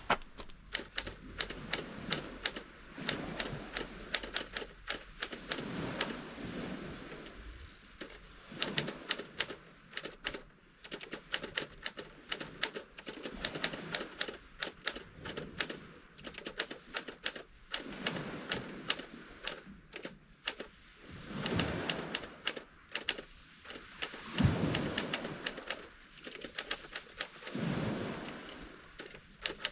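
Vintage Underwood manual typewriter being typed on: quick, irregular clacks of the keys striking, with a few longer low swells of noise between runs of typing.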